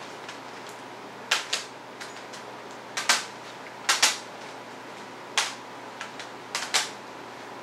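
Sharp clicks and clacks of hard objects being handled, about nine in all, several in quick pairs. They sound over the steady hum of an air conditioner and fan.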